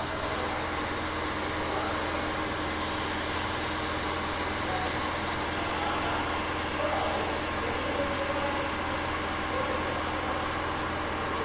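A steady mechanical hum with an even hiss over it, unchanging throughout, like a fan or small motor running in the room.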